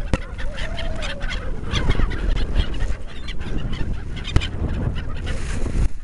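A flock of gulls calling overhead: many short squawks overlapping, with a low rumble beneath. A sharp click right at the start and another about four seconds in.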